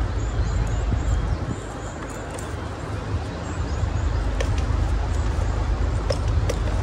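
Outdoor background: a steady low rumble, with faint, short, high bird chirps and a couple of light clicks.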